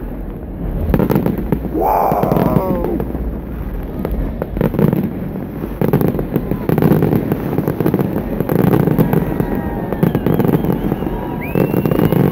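Fireworks display at close range: a dense, unbroken barrage of crackles, pops and bangs from fountains and aerial shells.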